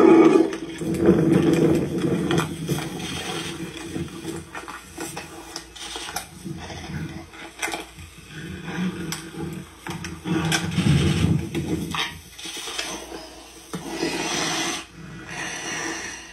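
Two fighting tigers growling and snarling in rough, irregular bursts, loudest at the start and again about ten and fourteen seconds in.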